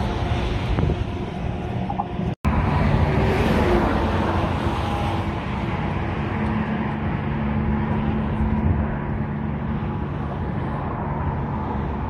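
Steady road traffic noise from passing cars, with a low steady hum through the middle stretch; the sound cuts out completely for an instant about two and a half seconds in.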